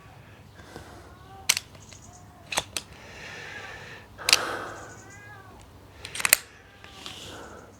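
Sharp metallic clicks and knocks from a PCP air pistol's side-lever action being worked and handled between shots, including a quick double click. Faint high, bending squeaky tones sound in between.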